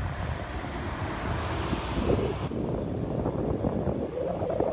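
Steady road and engine noise of a moving car, heard from inside the car, with a high hiss that drops away about halfway through.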